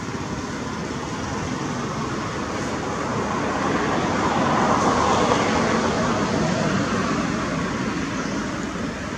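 A passing road vehicle: a steady rushing noise that swells to a peak about halfway through and then fades away.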